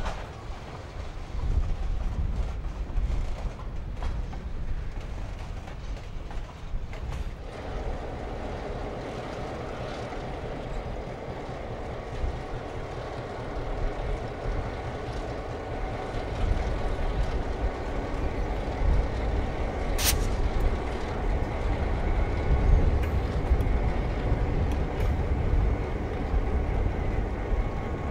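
Freight cars rolling past on jointed rail, the wheels thumping and clicking over the rail joints. From about seven seconds in, the steady drone of two high-hood EMD road switchers, a GP9 and a GP18 with 16-cylinder 567 two-stroke diesels, joins in and grows louder as they pass. There is one sharp click about twenty seconds in.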